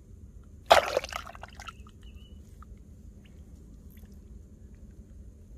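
A short, loud squelching splash of muddy water about a second in, with a few smaller wet sounds after it, from a hand digging into a water-filled field-crab burrow.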